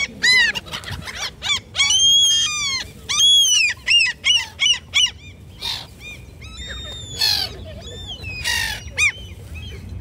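A flock of black-headed gulls calling: many harsh, overlapping calls crowd together for the first five seconds, then thin out to scattered single calls.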